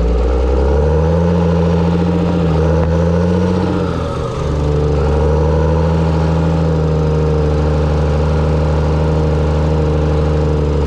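John Deere 7720 tractor's six-cylinder diesel engine running under load while pulling trailers. Its pitch rises about a second in, dips briefly just after four seconds, then holds steady.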